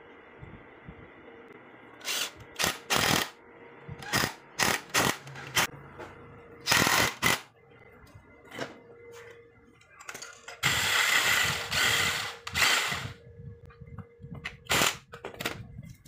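Cordless power driver with a socket bit running in short bursts, driving the bolts of a home-made angle-grinder cut-off stand, with one longer run of two to three seconds past the middle. Between the bursts there are small knocks of metal parts being handled.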